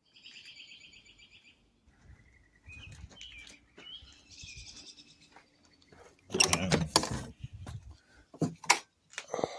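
A bird's high, rapid trilled chirp, then scattered chirps. About six seconds in comes a loud burst of knocks and clatter from something being handled, with a few sharp clicks near the end.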